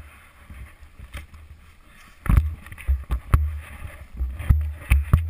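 Helmet camera knocking and scraping in deep powder snow as a snowboarder falls: a click at the start, then, from about two seconds in, a run of dull thumps and low rumbling.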